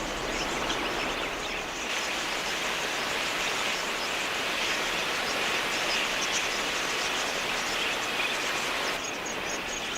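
Dense, steady chatter of a large flock of budgerigars, many high calls blurring into one continuous din, easing slightly about nine seconds in.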